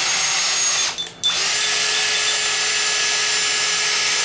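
Cordless drill with a nail-puller attachment spinning in reverse at speed, a steady motor whine; it stops for a moment about a second in, then starts again and runs on.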